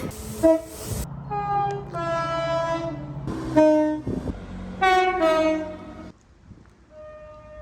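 Train air horns sounding a series of blasts, one horn after another, each a chord of several steady tones, with a low rumble under some of them. After a short quiet gap near the end, a fainter horn sounds.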